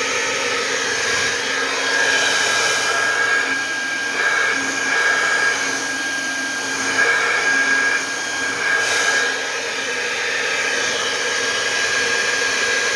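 Polaris 2000 W hair dryer running on its second, faster speed: a steady rush of air with a thin high motor whine, the air noise swelling and dipping a little now and then.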